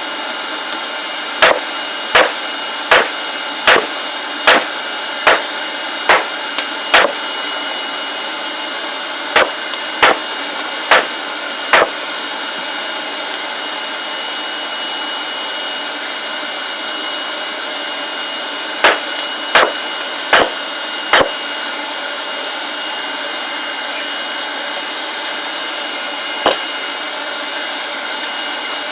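Hammer blows on hot rebar against an anvil, in runs: eight even blows, then four, then four more, with one last blow near the end. A steady hiss runs underneath, likely the air pump blowing the forge fire.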